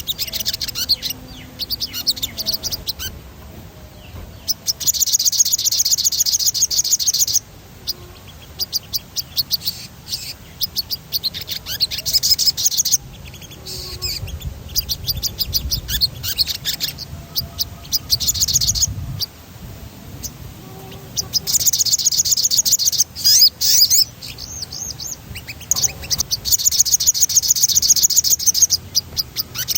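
Sogon bird singing in full voice, with rapid high rolling trills ("ngerol") a few seconds long alternating with shorter runs of chirping notes.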